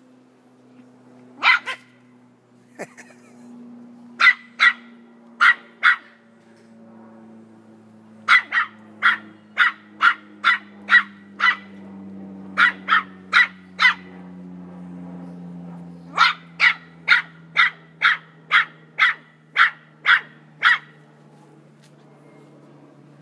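Small toy-breed puppy barking in short, high, sharp barks, about two a second, in several runs of four to ten barks with short pauses between.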